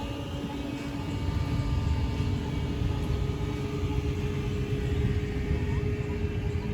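A motor vehicle's engine running steadily: a low rumble with a steady hum over it.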